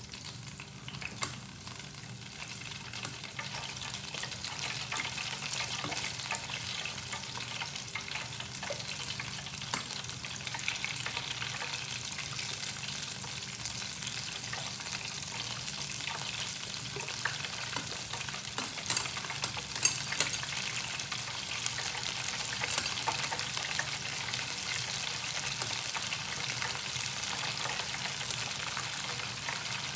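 Beer-battered shrimp deep-frying in hot oil: a steady crackling sizzle that builds over the first few seconds, with a few sharp clicks about two-thirds of the way through.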